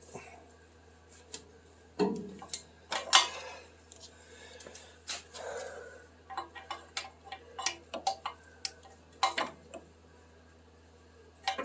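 Hand wrench working on seized exhaust manifold nuts: irregular metallic clicks and clinks of the tool on the nuts and studs, with a few louder knocks.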